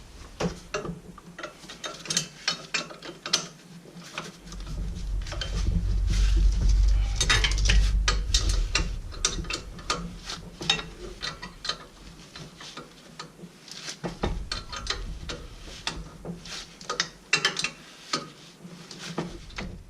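Hand ratchet wrench clicking in quick runs as it loosens the turbo's mounting bolts, with a low rumble partway through.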